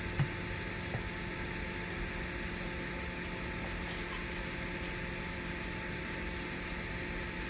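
Steady background hum and hiss of a running fan or air handler in a small room, with a short tap just after the start and a fainter one about a second in.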